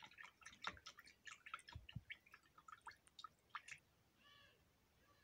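Faint, irregular clicks and light taps for the first four seconds or so, then one brief pitched call a little after four seconds in.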